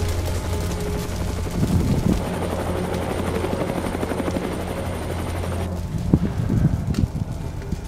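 Firefighting helicopter's rotors beating steadily, cutting off suddenly about three-quarters of the way through. A few sharp knocks follow.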